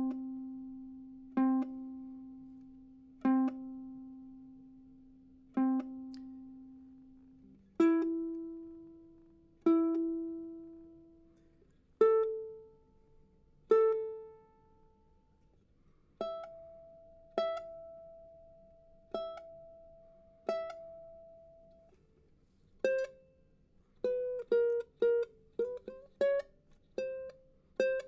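Cedar-top, walnut-bodied Pohaku concert ukulele played one plucked note at a time, each note left to ring and die away. The notes climb in pitch, from four plucks on a low note through two higher pairs and four on a higher note still; quicker notes follow one another near the end.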